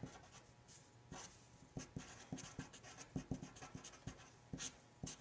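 Sharpie felt-tip marker writing on paper: faint, irregular short strokes and taps as letters are drawn.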